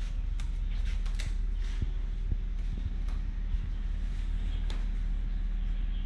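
Footsteps and light creaks on old wooden floorboards, a few irregular knocks, over a steady low rumble of background noise.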